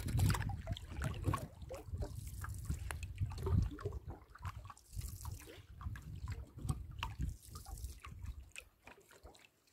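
Canoe paddles dipping into lake water, with irregular splashes, trickles and drips from the blades between strokes; it quietens near the end.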